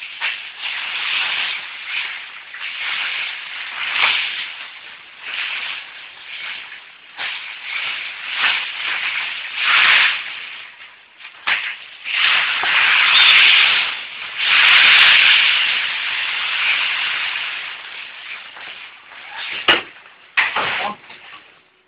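Loose shredded waste paper rustling and crunching as it is handled and stuffed into a paper baling press chamber, in irregular swells. The loudest stretch comes about halfway through.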